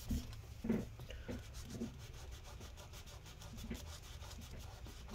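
Paper towel soaked in rubbing alcohol being rubbed over adhesive residue inside a MacBook Pro's aluminium case, in a few short, faint scrubbing strokes.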